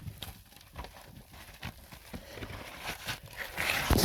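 Irregular knocks and scrapes of a caver shifting about in a tight, freshly dug cave passage, with a louder scraping rustle and a thump near the end.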